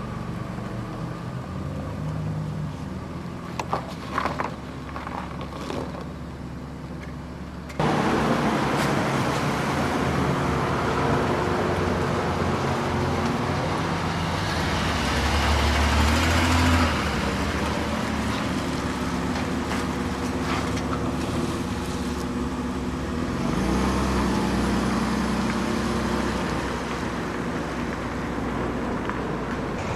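A car driving: steady engine hum with tyre and road noise, suddenly louder about eight seconds in.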